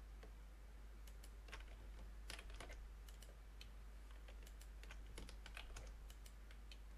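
Faint computer keyboard and mouse clicks, scattered and irregular, over a faint steady low hum.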